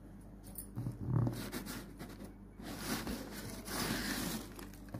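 Hand rubbing and handling a shrink-wrapped cardboard fireworks box: a few rustling, scraping sweeps, with the fullest ones near the middle and toward the end.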